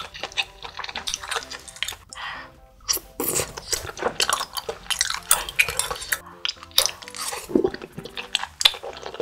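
Close-miked eating sounds of spicy tteokbokki: chopsticks clicking against a small glass bowl, along with chewing and mouth noises, in quick irregular clicks.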